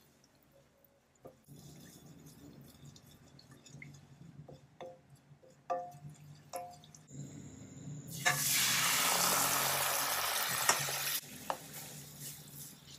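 A wooden spoon scraping and tapping in a stainless steel saucepan of annatto oil, then coconut milk poured into the pan, a loud rushing splash lasting about three seconds.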